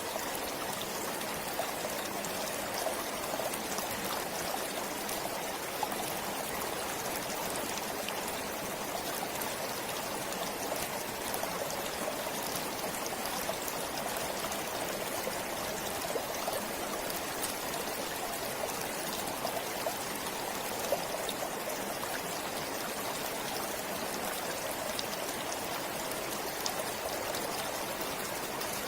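Stream flowing steadily: an even rush of water with many small trickling splashes, unchanging throughout.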